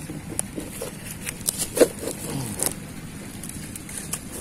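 Scattered light clicks and crackles of dry reed stalks and litter being shifted on the bank, with a brief short pitched sound a little under two seconds in.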